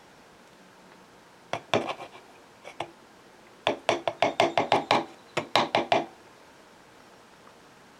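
A metal knife scraping and knocking inside a plastic peanut butter jar. A few scattered clicks, then about halfway through a quick run of knocks, about five a second, for two seconds before it stops.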